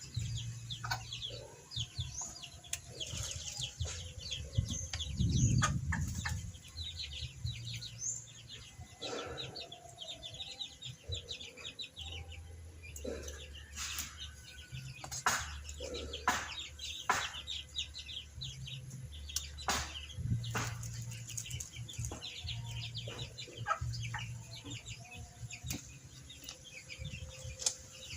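Birds chirping almost without pause, with chickens clucking among them. Occasional sharp knocks and clatter, and a low hum underneath.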